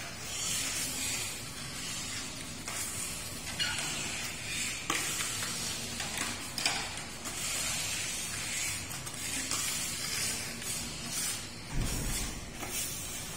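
Grout float scraping and swishing wet cement grout over ceramic floor tiles in repeated back-and-forth strokes, with a low bump near the end.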